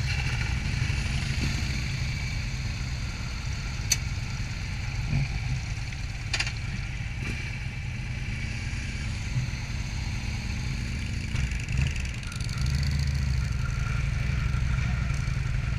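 Motorcycle engine running at low speed with a low rumble as the bike rolls through a parking lot. It gets louder for a few seconds near the end, and a couple of sharp clicks sound in the first half.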